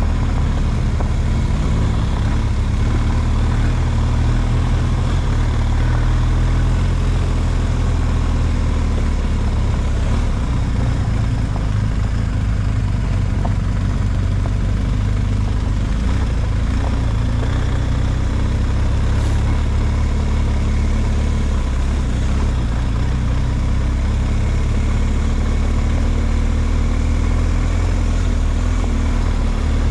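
A vehicle engine running steadily at low revs, with small rises and falls in pitch.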